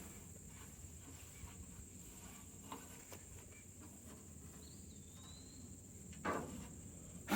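Quiet outdoor background with a steady high-pitched buzz and a faint thin whistle gliding down about halfway through, then two short knocks near the end as the sawmill is handled during a blade change.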